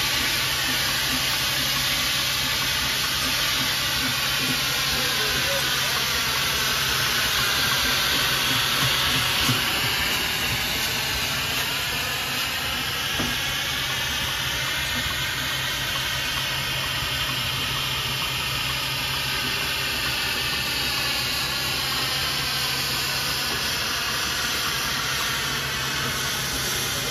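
Steady hiss of steam from an 1899 William Foster & Co. steam traction engine as it manoeuvres, the hiss slowly sweeping in tone.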